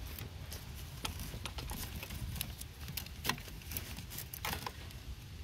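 Scattered light clicks and rustles as a hand handles a braided wiring loom in a car's engine bay, over a low steady rumble.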